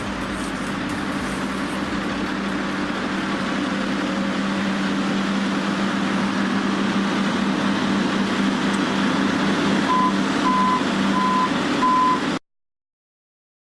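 Heavy construction machine's engine running steadily, with a reversing alarm beeping four times near the end. The sound then cuts off abruptly.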